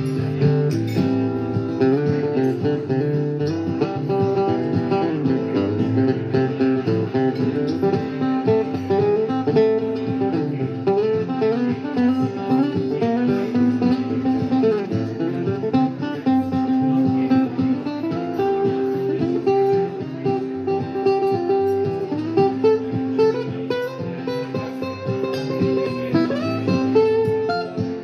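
Acoustic guitar played solo in a steady instrumental passage, a run of plucked and strummed notes with no singing.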